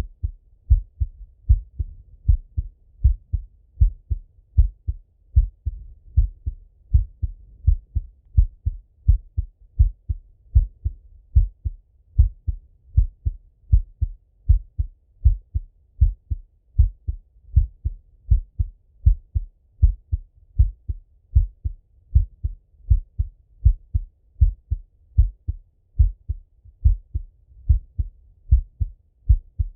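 A man's heartbeat heard through a Littmann stethoscope chest piece: a steady, slow rhythm of paired low lub-dub thumps, roughly one beat a second.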